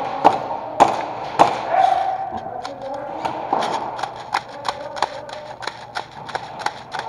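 Airsoft fire: sharp single cracks, three loud ones in the first second and a half, then quicker, fainter shots about two to three a second, with faint voices behind them.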